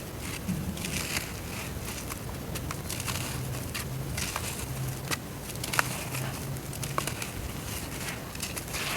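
Dry brown dirt crumbling in water: a steady fizzing crackle with scattered sharp clicks, two louder ones in the second half.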